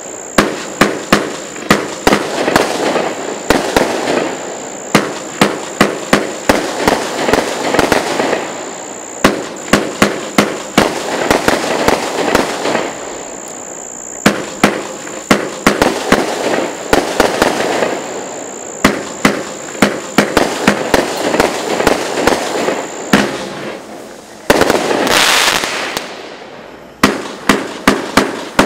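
A 'Harder!' consumer firework cake firing: quick runs of sharp launch thumps and bursting reports in clusters of several shots, with crackling between them. About 25 seconds in, a loud hissing rush lasts around two seconds before the shots resume.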